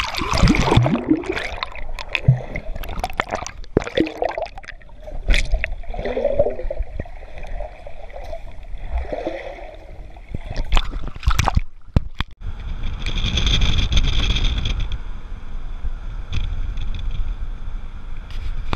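Irregular sloshing and gurgling water with sharp knocks. After about twelve seconds it gives way to the steady rush of road noise inside a moving car.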